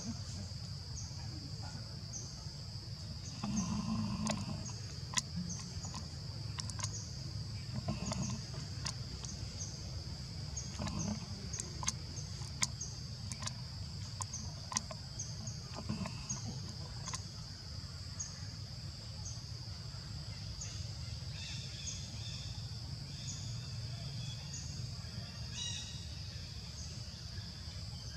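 Outdoor ambience of insects: a steady high buzz with short chirps repeating about one and a half times a second. A low rumble runs underneath, with a few sharp clicks.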